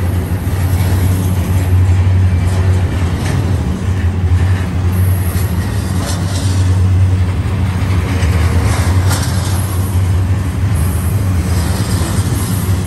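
Double-stack intermodal freight train's container well cars rolling past: a steady loud low rumble of steel wheels on rail, with scattered clicks.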